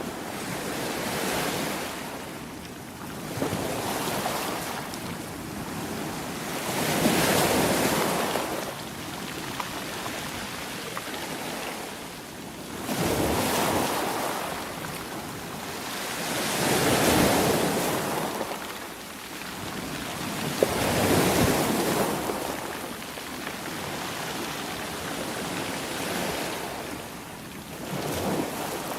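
Sea waves breaking and washing in, each one a swelling rush of surf that rises and falls away, about seven times at uneven intervals of a few seconds.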